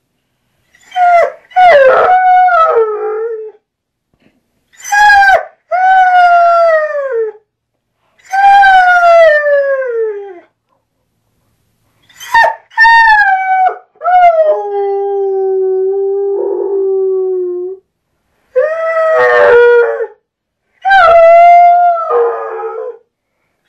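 Trail hound howling and baying in a series of about ten loud calls, most sliding down in pitch, with one long steady lower howl of about three seconds midway. The hound is very upset, howling at his owner's absence.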